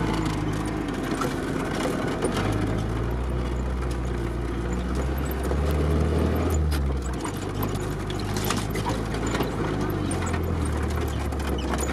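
GAZ-69's four-cylinder flathead engine running in low range, heard from inside the cab, its note rising and falling with the throttle and strongest about six seconds in. Scattered knocks and rattles of the body over rough ground sound through it.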